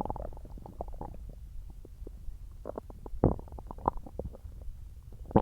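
Human stomach rumbling and gurgling while digesting watermelon: an irregular run of short squelchy gurgles and pops, the loudest a little over three seconds in.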